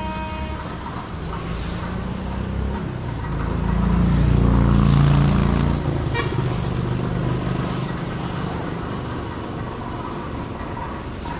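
A motor vehicle passing on a nearby road: its engine swells to a peak about five seconds in and then fades, with a short horn toot right at the start.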